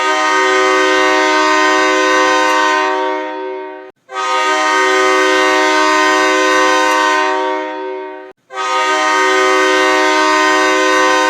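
Florida Everblades 2021 hockey goal horn sounding three long blasts of about four seconds each, with short breaks between them, each blast fading over its last second.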